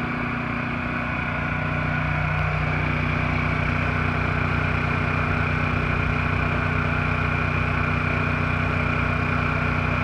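Honda EU2000i and EU1000i inverter generators, single-cylinder four-stroke engines, running together in parallel with eco throttle on, carrying the load of a 13,500 BTU rooftop air conditioner: a steady, even engine hum that gets a little louder after about two seconds.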